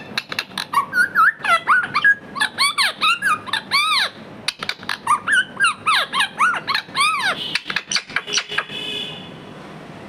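Indian ringneck parrot chattering in a rapid run of short, squeaky chirps, each rising and falling in pitch, with sharp clicks in between; near the end it settles into a quieter, steadier high note.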